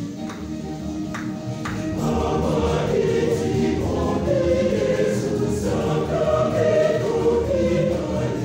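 A choir singing a gospel song in parts, growing louder about two seconds in, with a few sharp hits in the first two seconds.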